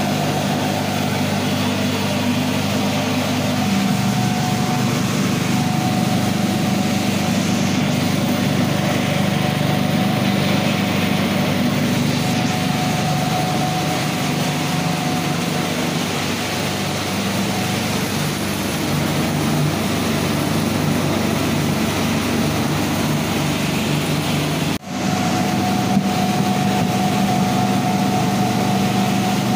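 Animal-feed pellet mill running steadily under load, pressing feed into pellets: a constant machine hum with a faint higher tone over it. The sound cuts out for an instant about 25 seconds in, then carries on.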